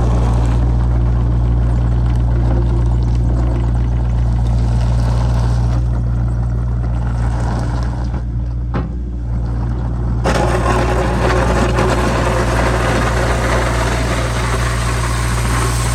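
Small trencher's engine running steadily with a deep, even hum. About ten seconds in, a rougher, harsher noise rises over it and continues.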